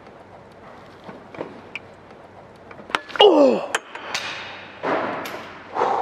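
A man straining with effort: a loud groan falling in pitch about three seconds in, followed by hard, breathy exhalations. Small clicks and knocks of hand tools against engine parts run underneath.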